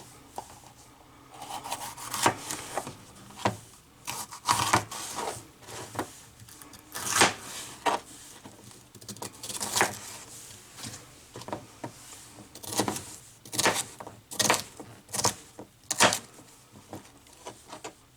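Kitchen knife dicing a bell pepper on a cutting board: irregular knocks of the blade striking the board, some in quick runs, with the slicing of the pepper flesh between them.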